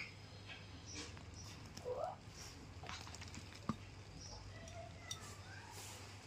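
Quiet background with a low steady hum, a few small clicks from plastic sunglasses being handled and put on, and a short faint voice sound about two seconds in.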